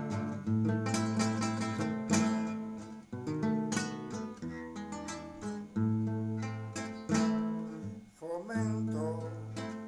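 Acoustic guitars play an instrumental passage of a Cuban song: plucked melody notes over a bass line. A voice briefly comes in near the end.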